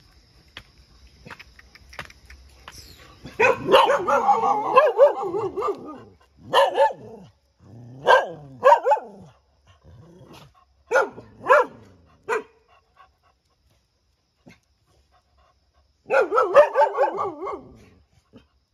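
Dogs barking in bursts: a long run of barks starts about three seconds in, then single barks and pairs until about twelve seconds, and after a pause another run of barks near the end.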